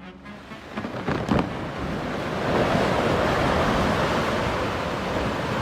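Rushing roar of wind and churning water, opening with a few sharp cracks about a second in and building over the next second or so to a steady, loud rush.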